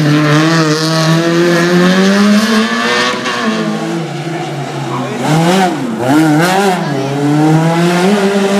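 Peugeot 106 slalom cars' four-cylinder engines revving through a tight bend, the pitch rising and falling with throttle and gear changes. About halfway through, a second car comes through with quick blips of revs.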